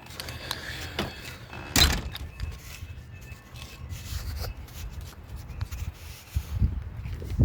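Handling knocks and thumps, one loud thump about two seconds in and another near the end, over a low rumble.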